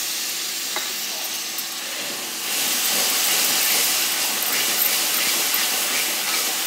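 Cold yogurt sizzling and hissing in hot oil and fried masala in a steel kadhai. The sizzle grows louder about two and a half seconds in as the yogurt is stirred through with a spatula.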